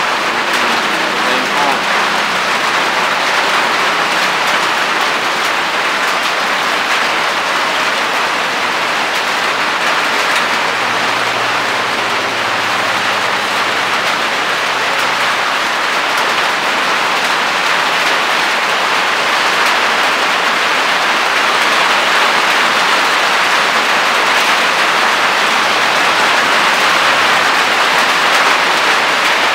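Steady rainfall, a dense even hiss that grows slightly louder near the end.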